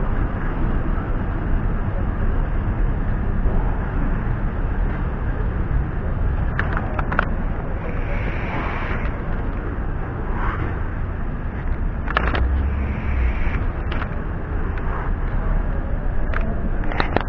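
Steady city street noise of traffic, with low wind rumble on the moving camera's microphone and a few sharp clicks now and then.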